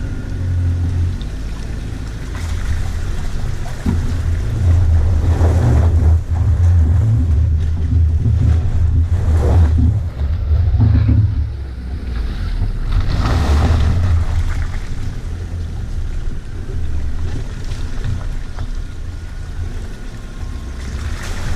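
Land Rover Freelander's 1.8 engine pulling at low revs off-road, a steady low rumble that swells several times, with three passing rushes of noise that could be wind or ground noise.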